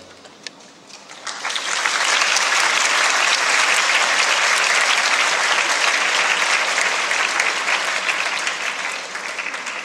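Audience applauding as a piece finishes: the clapping starts about a second in, builds quickly to a steady dense patter, and eases off slightly near the end.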